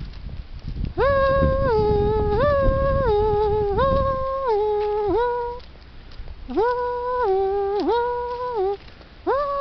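A two-tone hi-lo emergency vehicle siren alternates between two pitches about every two-thirds of a second, breaking off briefly twice. For the first few seconds wind rumbles on the microphone.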